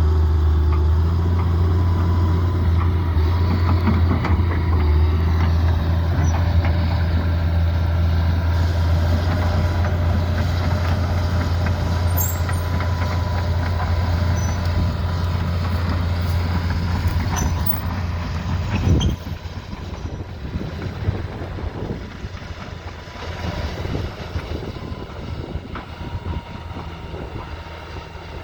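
Hitachi Zaxis 200LC excavator's diesel engine running with a steady, heavy low drone. About two-thirds of the way through there is a sudden change, and the drone falls away to a quieter, uneven rumble.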